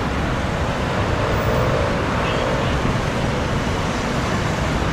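Steady road traffic noise of cars passing on a highway.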